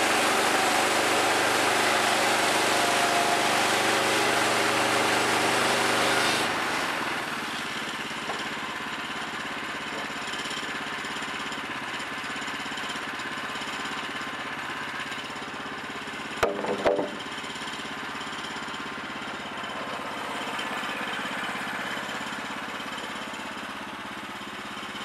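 Woodland Mills portable band sawmill's gas engine running under load while the band blade cuts through a Douglas fir log; about six seconds in the cut ends and the sound drops to the engine idling steadily. A short clatter of knocks partway through as lumber is handled.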